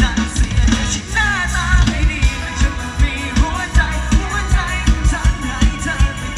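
Live Isan mor lam band music: a steady kick-drum and bass beat under a wavering, ornamented melody line that comes in about a second in.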